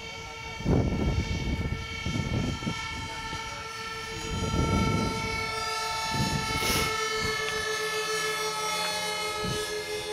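Steady, high-pitched motor whine from an RC model aircraft flying overhead, its tones drifting slightly. It is broken by a few bursts of low rumble, the loudest about a second in.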